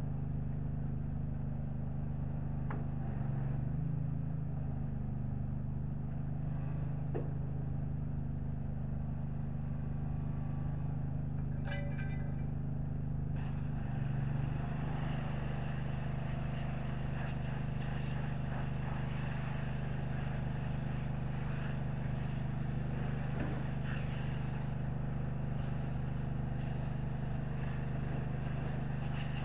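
Pressure-washer spray hissing against a semi truck's wheels and fuel tank over a steady engine hum; the spray hiss starts a little before halfway through.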